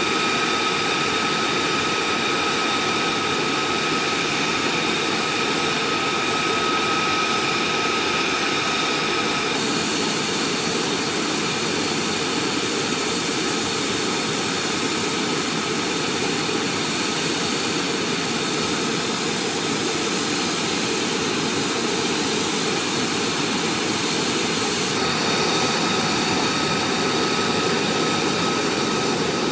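F-35A Lightning II's F135 turbofan engine idling on the ground with a steady high whine over a rushing roar; the engine is kept running while the jet takes on fuel in a hot pit refueling. The whine fades somewhat about a third of the way in and comes back near the end.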